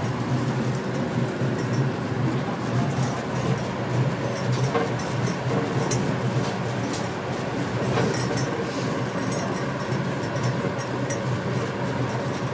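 Cabin noise of a rubber-tyred automated guideway train running along an elevated track: a steady low hum from the running gear, with a few faint clicks and rattles.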